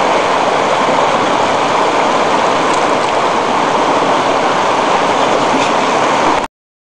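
Steady rushing of a fast-flowing river, cutting off abruptly near the end.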